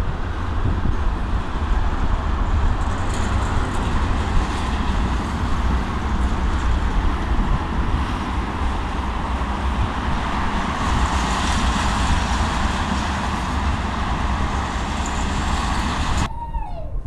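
Freight train of tank cars rolling past: a steady rumble and rush of steel wheels on rail, which cuts off suddenly near the end.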